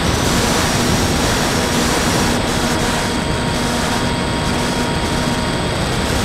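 Electric motor and pusher propeller of a Bixler 2 foam RC plane in flight, heard from its onboard camera: a steady drone with several whining tones over heavy wind rush.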